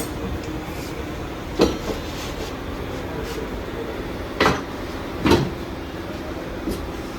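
Tyre-fitting work on a motorcycle wheel: three sharp metallic knocks, the second and third louder, over a steady machine hum.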